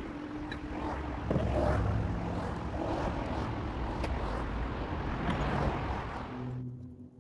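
Road traffic passing: a steady rush of car tyre and engine noise that swells and fades, then cuts off abruptly near the end.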